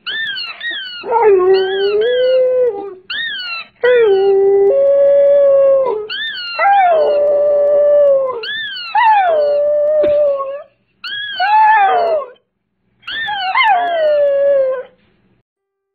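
A rubber squeaky toy squeezed in quick runs of high squeaks, and a dog howling along to it in long howls, one after each run of squeaks.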